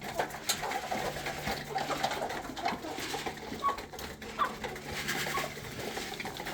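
Domestic poultry calling softly and repeatedly in short low coos and chirps, over a faint steady low hum.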